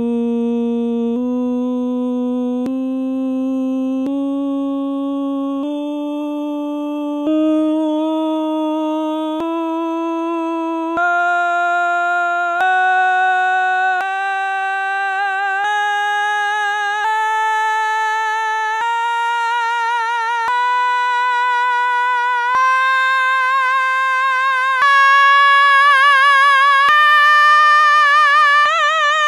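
A man singing a slow ascending chromatic scale, holding each note for about a second and a half, with a clean break before each step up, from about A#3 up to about D5. A vibrato comes into the notes from about halfway up, and the upper notes are a little louder.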